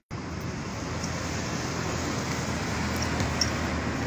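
Steady rumble of road traffic, with a couple of faint, short, high squeaks. The sound cuts out for an instant at the start.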